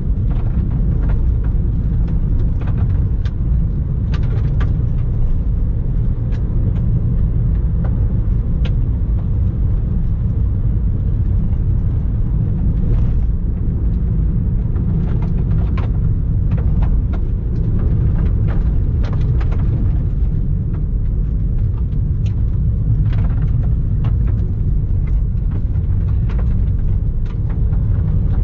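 Car driving along a gravel road: a steady low road and tyre rumble, with frequent sharp ticks of loose gravel hitting the car.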